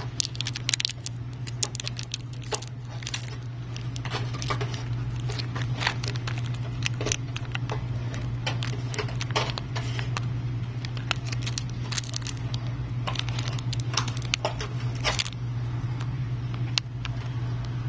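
Clear plastic film crinkling and crackling under fingers as it is worked off a freshly UV-glued phone screen assembly: many small, irregular clicks and rustles, over a steady low hum.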